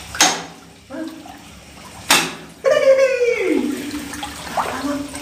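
Two short splashes of water, about two seconds apart, as people wade and work in shallow water; right after the second, a voice calls out in a long cry that falls in pitch.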